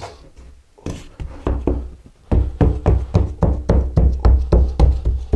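A Marshalltown hand float tamping sand-mix deck mud down around a shower drain: a run of quick, heavy thuds, about three or four a second, beginning a couple of seconds in, as the mortar is packed firm so the drain cannot move.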